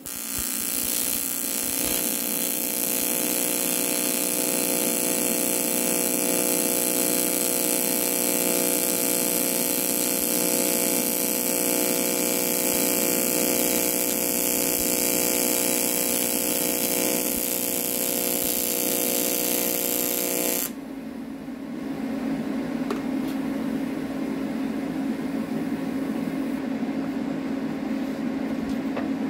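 TIG welding arc on an aluminum transmission adapter housing: a steady buzz with hiss. It cuts off abruptly about two-thirds of the way through, and a lower steady hum carries on after.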